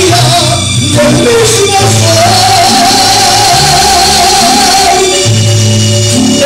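Man singing a mariachi-style song into a microphone over instrumental accompaniment with a steady bass line, holding one long note through the middle.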